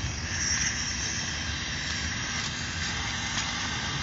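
Steady hiss of gas flowing from a pressurised cylinder through a hose into a weather balloon, strongest in the first second, with wind buffeting the microphone underneath.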